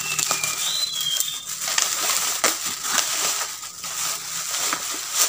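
Black plastic mailer bag crinkling and rustling as scissors snip it open and hands pull it off a foam-wrapped package, with many small sharp crackles.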